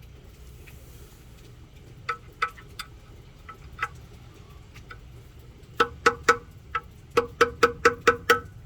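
A hammer striking a screwdriver, in sharp, ringing metal taps: four spaced taps, then a quicker run of about ten, to knock loose a part stuck in place.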